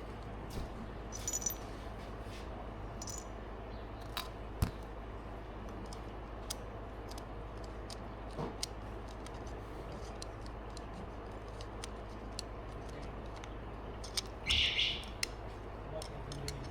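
Scattered light clicks and taps of tools and parts being handled, over a steady low hum, with a short louder scrape about fourteen and a half seconds in.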